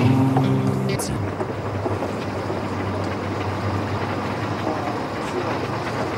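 Small fishing boat's engine running steadily at sea, a constant low hum under a wash of water and wind noise. Held tones stop about a second in.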